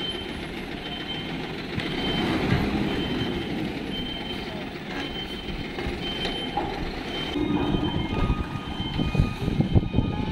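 Isuzu Giga cargo truck's reversing beeper sounding about once a second over the low running of its diesel engine as it backs up a ferry ramp.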